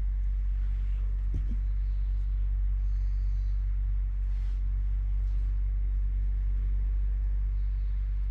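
Nissan Prince Miler engine running steadily, a constant low rumble.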